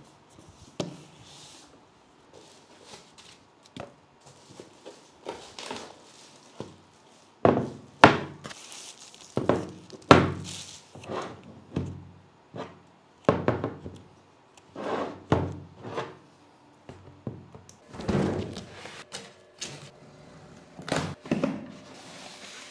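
Cardboard packaging and a boxed PC power supply being handled on a tabletop: a run of irregular thunks, scrapes and rustles as the box is opened, the unit lifted out and set down, and a larger carton moved. The loudest thunk comes about eight seconds in.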